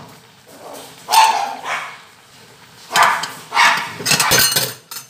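A dog barking several times: one bark about a second in, then a quick run of barks a little after the middle.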